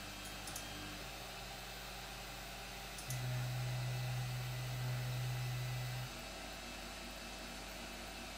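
Faint steady hum from the idle 3D printer. About three seconds in, its stepper motors start a smooth low whir that lasts about three seconds and then stops, as the Z axis moves the print bed on its lead screws.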